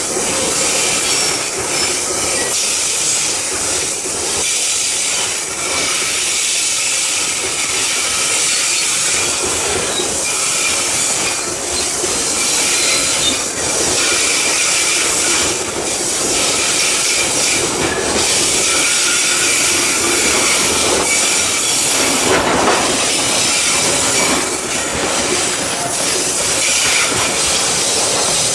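Long train of loaded coal wagons rolling slowly round a curve, steel wheels squealing and grinding against the rails in a steady, high screech.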